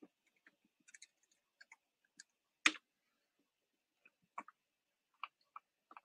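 Computer keyboard keystrokes and mouse clicks, faint and scattered, as a ticker symbol is typed and entered; the loudest single click comes a little under three seconds in.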